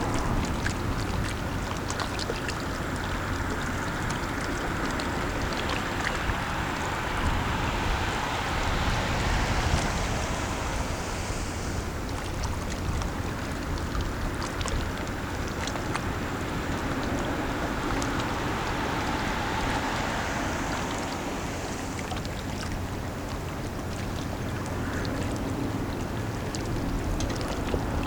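Self-unloading lake freighter passing: a steady low rumble with the wash of water, under wind on the microphone.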